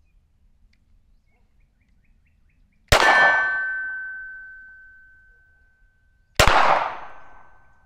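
Two pistol shots from a 9mm SIG P320 Spectre Comp, about three and a half seconds apart, the first about three seconds in. A clear metallic ring, like a struck steel target, hangs on for a couple of seconds after the first shot.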